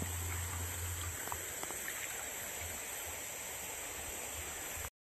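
Shallow river water flowing and rippling over its bed, a steady rush of water. It cuts off abruptly near the end.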